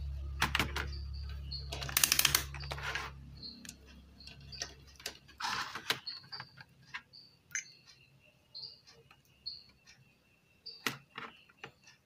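Clicks and rattles of multimeter test leads and a stereo's front-panel circuit board being handled on a workbench, loudest in the first few seconds, while the keypad switches are probed for a short. A low hum stops about halfway, and faint short high chirps repeat throughout.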